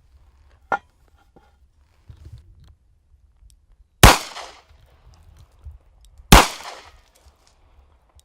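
Two shots from a Smith & Wesson scandium-titanium .357 Magnum revolver firing .38 Special rounds, a little over two seconds apart, each with a short ringing tail. A single sharp click comes about three quarters of a second in.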